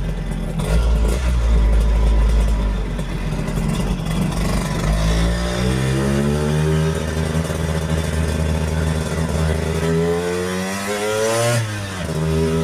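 1964 Lambretta Series 3 scooter's single-cylinder two-stroke engine under way, climbing steadily in pitch through a gear for several seconds. Near the end it drops sharply at a gear change, then picks up again.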